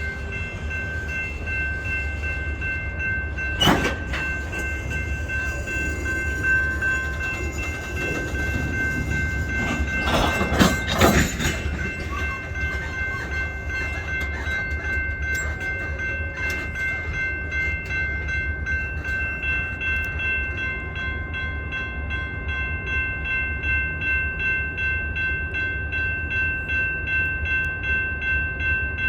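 Diesel freight locomotive running with a steady low rumble, under a steady high ringing tone. There is a sharp knock about four seconds in, and a cluster of knocks around ten to eleven seconds.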